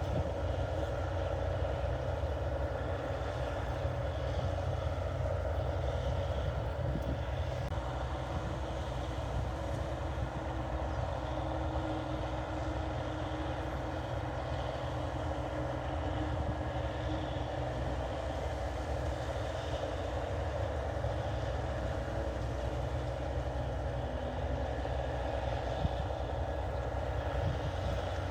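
New Holland 8080 combine harvester running steadily, a constant engine drone that holds the same level throughout.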